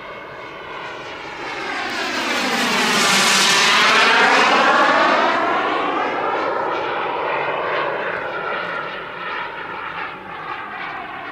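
Boomerang RC jet's small turbine engine passing by in a low flyby: a jet rush that swells to its loudest about four seconds in, then fades as the model moves away.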